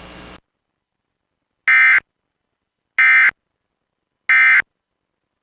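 Emergency Alert System end-of-message data bursts: three identical short warbling digital tones (the SAME "NNNN" code) sent about a second and a half apart, signalling that the alert has ended.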